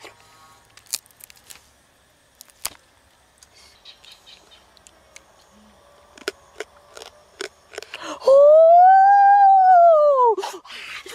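Wet chewing and lip-smacking clicks from eating roasted duck up close. About eight seconds in comes the loudest sound: a dog's long whine, about two seconds, rising and then falling in pitch.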